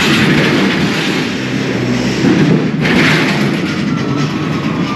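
Linde electric ride-on pallet truck driving over a truck trailer's floor: a loud, steady rumble of its wheels. Near the end a thin whine falls in pitch as it slows.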